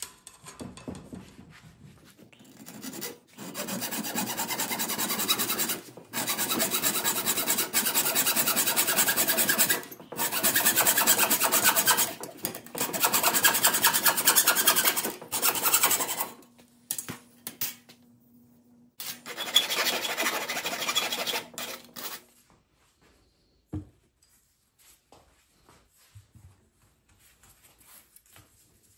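Abrasive rasping on a workpiece, in five long runs of a few seconds each. A faint steady hum comes in during the later runs, and a single knock follows near the end.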